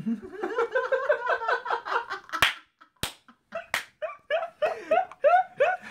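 A man laughing hard in quick, high-pitched bursts, with three sharp slaps in the middle as a hand strikes something.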